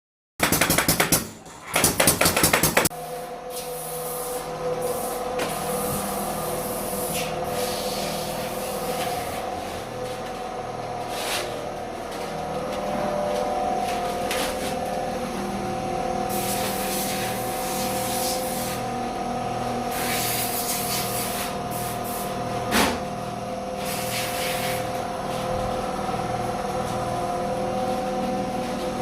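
A loud noisy burst lasting a couple of seconds, then a steady machine hum with a low pulsing beat. Short hissing bursts come every few seconds, and there is one sharp click near the end.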